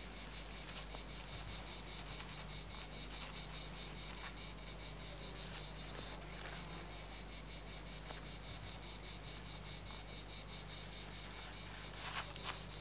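Insects chirping steadily in a rapid, high-pitched, evenly pulsed trill, with a faint low hum underneath and a couple of faint clicks near the end.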